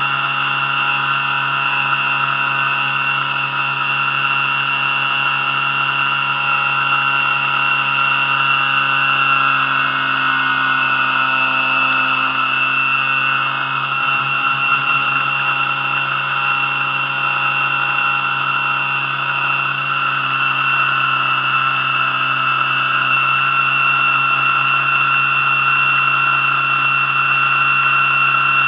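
Electric drive motor of an Aquacraft Rescue 17 RC fire boat whining steadily at running speed, heard up close from on board, with water rushing past the hull.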